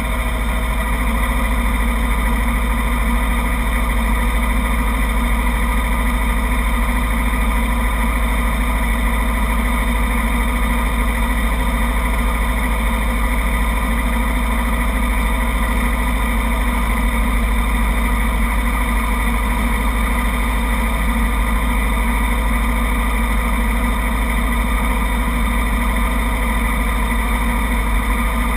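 Small-displacement sport motorcycle engines idling steadily, heard close through a bike-mounted camera, with a constant low rumble and no revving.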